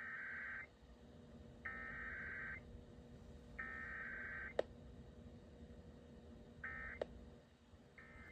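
Emergency Alert System digital header for a weekly test: three buzzy bursts of warbling data tones, each just under a second long and about a second apart, then two short end-of-message bursts near the end. Two sharp clicks fall between them, over a faint steady hum.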